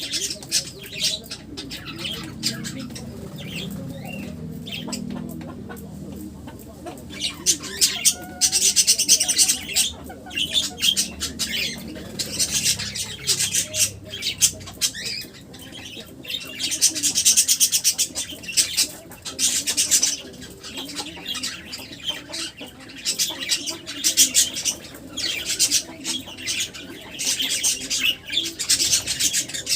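Pet birds squawking and chattering in repeated bursts of several seconds, with wing flapping.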